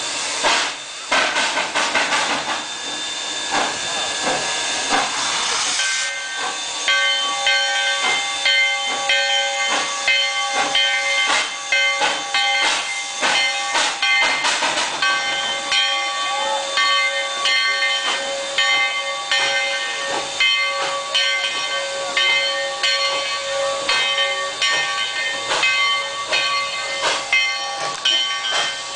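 Railway train running with a steady hiss, joined about six seconds in by several steady high tones that pulse in a regular beat over the noise.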